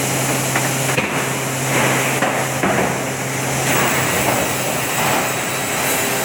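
Industrial plywood sanding machine running: a steady motor hum under loud rushing noise that swells and eases a few times, with a few sharp knocks, the clearest about a second in.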